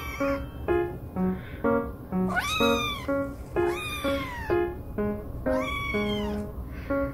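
Munchkin kitten meowing three times, each cry rising and then falling in pitch, over light background music of short, evenly paced notes.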